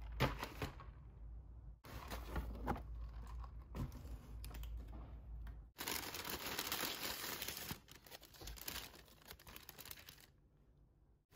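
Paper and foil wrapping crinkling and tearing as a purple sweet potato is unwrapped by hand. It comes in several short stretches that start and stop abruptly, with the busiest crinkling about six to eight seconds in.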